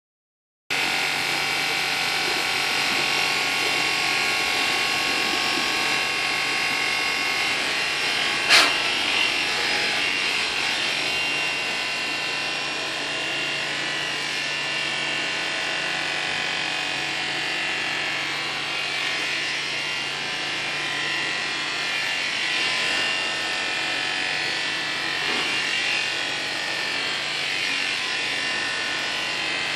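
Electric animal clippers buzzing steadily as they shear a llama's fleece. A single sharp knock comes about eight and a half seconds in.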